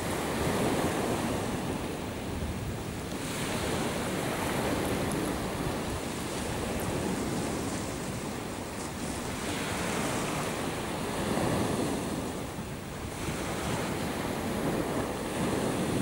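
Sea waves washing ashore: a steady rushing of surf that swells and eases again every few seconds.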